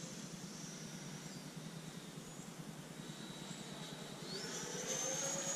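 Whine of the twin 64 mm electric ducted fans on a Freewing F-14 Tomcat RC jet in flight. The whine rises in pitch and grows louder about four seconds in, as the fans spool up.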